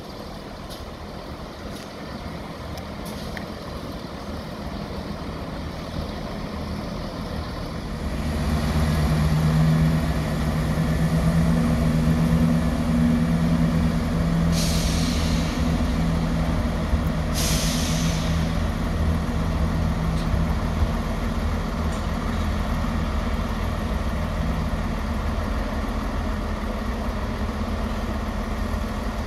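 A diesel train's engine, growing louder over the first ten seconds and then running with a steady hum as it stands or creeps at the platform. About halfway through there are two short hisses of compressed air.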